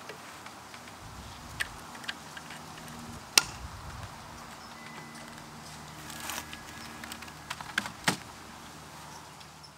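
A few sharp clicks and knocks of hard plastic being handled: a wireless USB receiver plugged into an inspection monitor's port and a keyboard set down on the monitor case. The loudest click comes about three and a half seconds in, with a close pair near the end.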